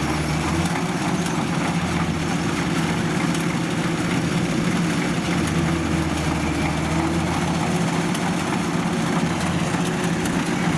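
Kubota DC93 combine harvester's diesel engine running steadily while the machine sits bogged at a collapsed ditch edge, its tracks unable to climb out. A deep low drone in the engine note swells and fades a few times.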